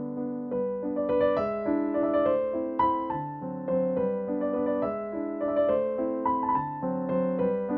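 Background music: a piano tune played over lower chords, with new notes every half second or so.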